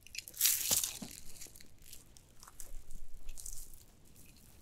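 A tangled bundle of Christmas string lights being handled and worked apart, the strands rustling and crinkling with small clicks, in two bursts and fading near the end.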